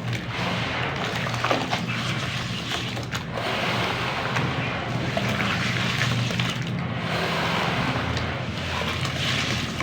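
Crunchy black clay crumbling into water, a continuous wet crumbling and splashing that swells and eases several times, with a few small cracks. A steady low hum runs underneath.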